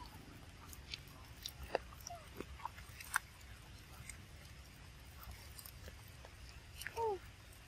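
Faint scattered clicks and ticks over a low rumble, with one short falling squeak about seven seconds in.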